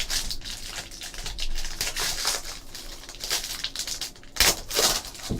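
Trading-card box and its packaging being handled and opened: irregular small clicks, taps and crinkling, with two louder knocks near the end.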